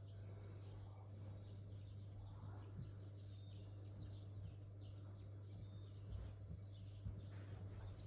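Faint, scattered short high-pitched chirps over a low steady hum.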